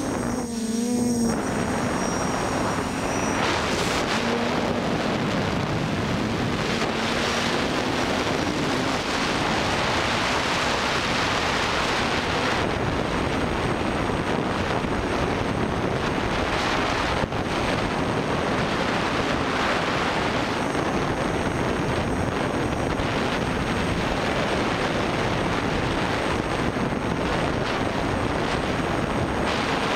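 Quadcopter's brushless motors and 9x5 propellers whining in flight, heard through the onboard camera's microphone over a steady rush of wind. The motor pitch wavers up and down in the first few seconds.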